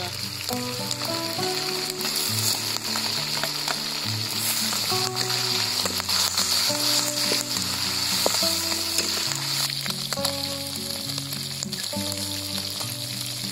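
Tadpoles frying in hot oil and chili paste in an aluminium wok, a loud steady sizzle with crackling spits. A metal spoon stirs and scrapes against the wok.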